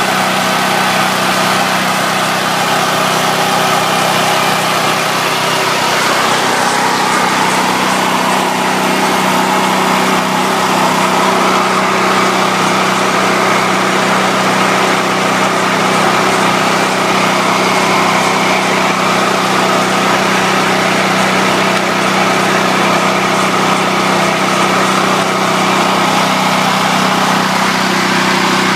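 Powerland portable generator's small engine running steadily on natural gas at a constant speed, with an even, unbroken hum.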